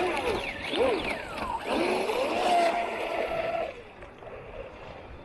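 Electric motor of an RC racing boat whining, its pitch sliding up and down as the throttle changes, over water noise. The whine drops away about three and a half seconds in, leaving a quieter hiss of water.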